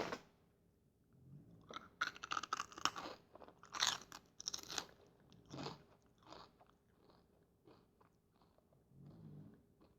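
Fritos corn chips being chewed close to the microphone: a run of loud, crisp crunches starting about two seconds in, then softer chewing crunches that taper off.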